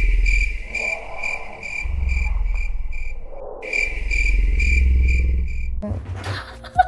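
Cricket chirping in a steady pulse, about three chirps a second, over a low rumble, with a short break partway through. It starts the moment the talk stops and cuts off abruptly: the 'crickets' comedy sound effect for an awkward silence.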